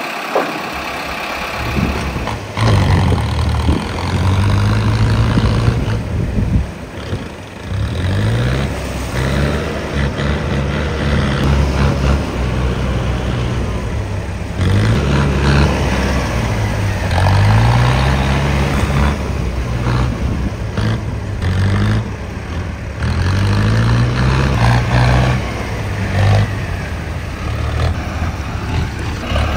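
Heavy diesel farm machine engine running and being revved, its pitch rising and falling again and again.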